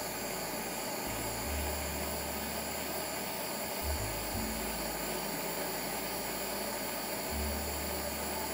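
Handheld gas soldering torch running with a steady hissing flame while it heats a small silver jump ring for soldering.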